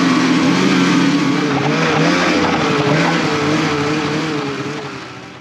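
Ski-Doo snowmobile engine running under throttle, its pitch wavering slightly, then fading out near the end.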